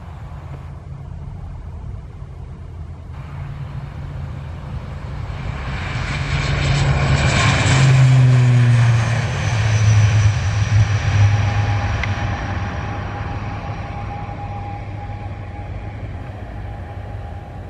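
ATR 72-600 twin turboprops at takeoff power: a deep propeller drone with a higher whine. It builds as the aircraft accelerates down the runway, is loudest as it passes about eight seconds in, and drops in pitch as it goes by. It then fades slowly as the aircraft climbs away.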